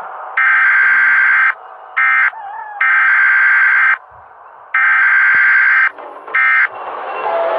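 Alarm siren sounding as a steady, buzzing tone at one pitch, neither rising nor falling, in loud blasts. The pattern runs long, short, long, long, short, each long blast lasting about a second.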